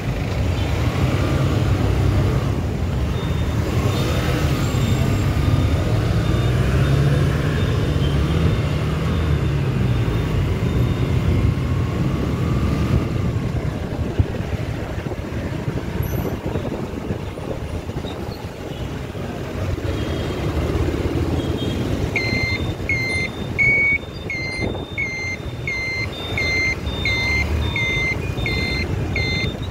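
Steady rumble of a motor vehicle on the move, engine and road noise together. About three-quarters of the way through, an electronic beeper starts: short, high beeps at about two a second that carry on.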